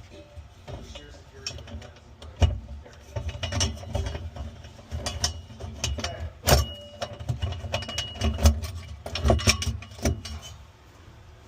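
Irregular knocks, clicks and clatter of hand work with tools and parts, with a brief thin high whine near the middle.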